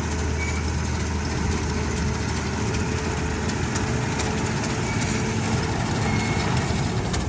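Tractor diesel engine running steadily, with a few faint clicks and rattles from the machinery.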